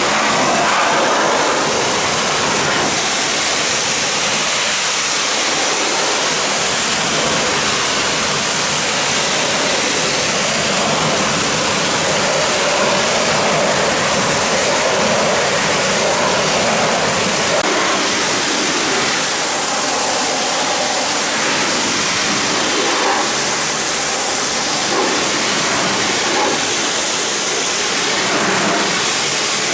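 High-pressure washer jet spraying water in a steady, unbroken hiss.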